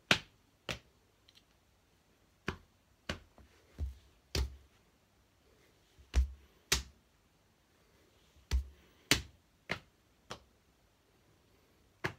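Hands slapping bare knees and chest: about a dozen sharp slaps, mostly in pairs about half a second apart, with quiet gaps between.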